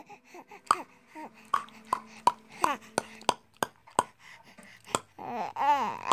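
Playful mouth and voice noises: a run of sharp mouth clicks and short squeaky voice sounds, then a long wavering, moan-like vocal sound starting about five seconds in.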